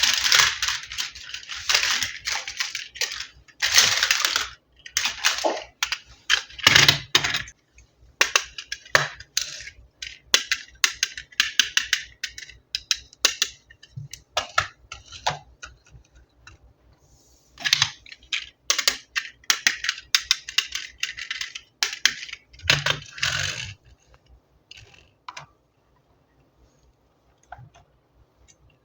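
Toy packaging and plastic toy parts being handled and opened: bursts of rustling with sharp clicks and taps, thinning to a few faint ticks near the end.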